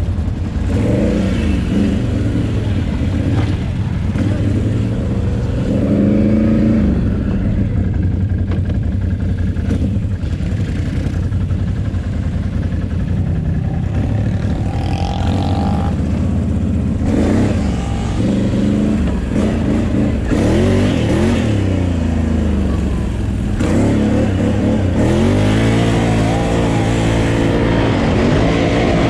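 Can-Am Renegade 800 quad's V-twin engine running under way, heard from on board, its pitch rising and falling repeatedly as the throttle is opened and eased over muddy ground.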